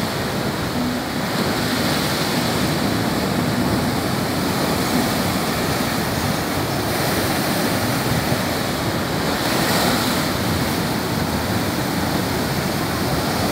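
Rough sea surf surging and breaking on a rocky shore: a steady wash of water that swells louder about two seconds in and again near ten seconds. Wind buffets the microphone.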